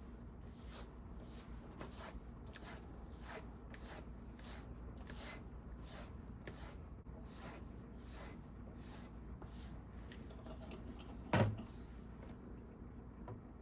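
Leather splitter blade being buffed on its back edge: a regular series of short rubbing strokes at about two a second, stopping about ten seconds in, followed by a single knock about a second later.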